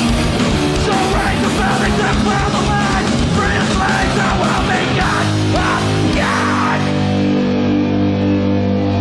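Live punk band playing loud, distorted guitars and bass over fast drumming, with vocals shouted into a handheld mic. About six seconds in the drums drop out and the guitars and bass hold a ringing chord.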